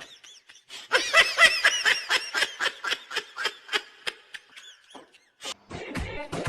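A person laughing in a rapid run of high-pitched bursts for about four seconds. Music with a beat comes in near the end.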